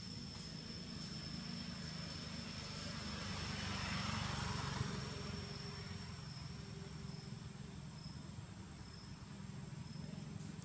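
Outdoor ambience: an insect's steady high-pitched trill, breaking into short pulses in the later part, over a low constant rumble. A broad rushing sound swells up and fades away around four seconds in.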